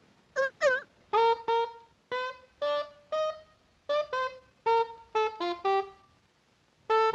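Cartoon baby seal honking: two short barks that bend in pitch, then a little tune of about a dozen short honks, each held at its own pitch.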